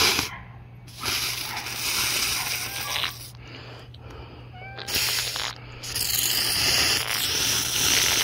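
Hasbro Spider-Man web fluid aerosol can spraying in four hissing bursts: a short one at the start, a longer one about a second in, a brief one around five seconds, and a long one from about six seconds.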